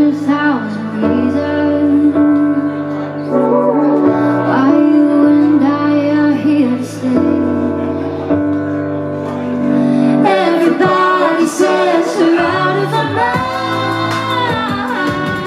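Live pop song: a woman sings the lead over sustained keyboard notes. About ten seconds in the low notes drop out and the arrangement thins. Fast ticking percussion comes in near the end under electric guitar.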